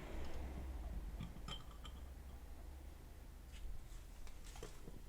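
A few faint, light clicks and clinks of small model parts being handled, over a steady low room hum.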